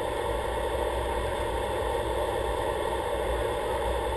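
Aircraft engine noise inside the cockpit on final approach to land: a steady, even drone with a low rumble beneath it.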